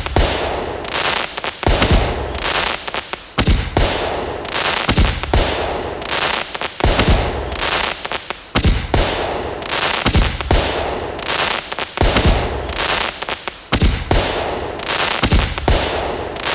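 Fireworks going off: repeated loud bangs and crackling, with a falling whistle recurring every second and a half or so.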